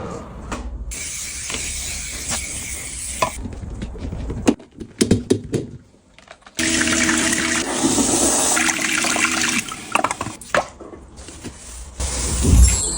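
Water running and splashing in two stretches of a few seconds each, with short knocks and clicks between them and a low thump near the end.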